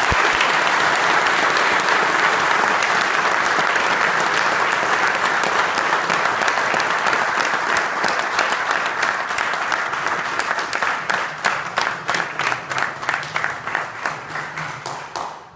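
Audience applause: dense clapping that, about ten seconds in, settles into rhythmic clapping in unison at about three claps a second, and dies away right at the end.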